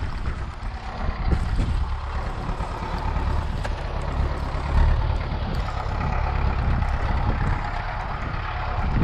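Four-cylinder diesel engine of a Belarus MTS-50 tractor running steadily as it pushes snow, heard from some way off, mixed with wind rumbling on the microphone.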